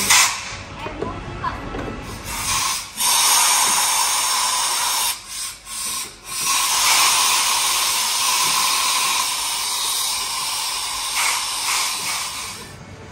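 Steady hissing spray of toy fire extinguishers in an interactive fire-rescue game as they are aimed at the screen. It starts about two and a half seconds in, breaks off briefly twice around five to six seconds in, and stops shortly before the end.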